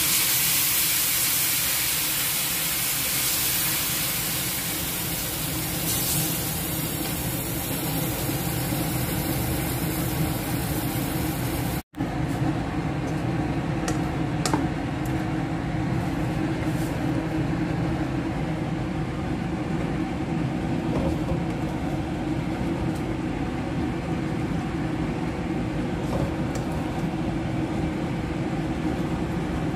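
Hot wok sizzling and hissing as coconut milk hits fried stingray pieces, gradually easing. After an abrupt cut about twelve seconds in, a steady low hum follows with a few light clicks.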